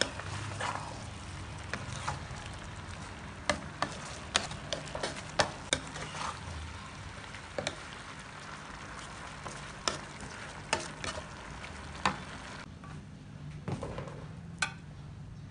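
Stir-fry of bean sprouts, chives and tofu sizzling in a pan. A wooden spatula tosses it, with frequent sharp knocks and scrapes against the pan. The sizzle dies down about three-quarters of the way through, leaving a few last knocks.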